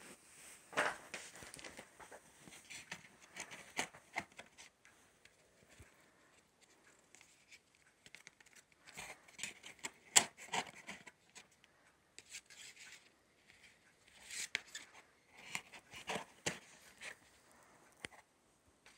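Cardboard CD sleeves and a hardcover book being handled in a box set: irregular rustling, sliding and light tapping of card and paper, with a sharp click about ten seconds in.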